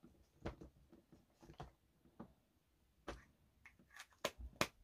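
Faint, scattered clicks and taps of small plastic LOL Surprise ball capsule pieces being handled and set against a plastic tray, coming quicker near the end.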